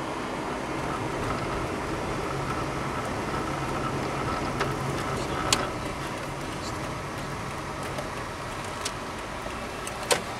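Citroën car driving, heard from inside the cabin: a steady engine and road drone that eases off about eight seconds in. A few sharp clicks cut through it, the loudest near the end.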